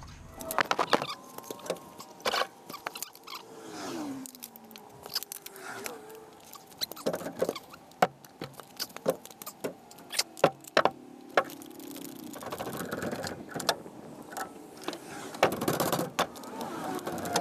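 Hydraulic floor jack being pumped under a trailer's steel frame: irregular metal clicks and clanks, with a few falling squeaks about three to five seconds in, as the jack takes weight off the frame beam.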